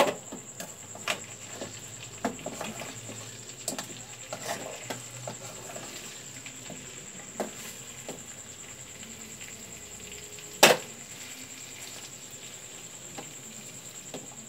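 Plastic slotted spatula scraping and knocking through chicken pieces in a non-stick pan, with a light sizzle of the oil as the pepper chicken stir-fries. A single sharp knock about ten and a half seconds in is the loudest sound.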